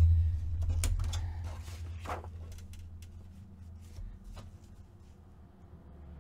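Sheets of paper and cardstock being handled and slid into place on a paper trimmer: light rustles, taps and clicks, over a low hum that fades away over the first few seconds.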